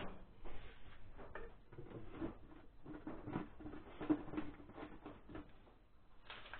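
Faint scattered clicks, taps and rustling of hands handling small parts and a plastic item at a walking tractor's engine, which is not running.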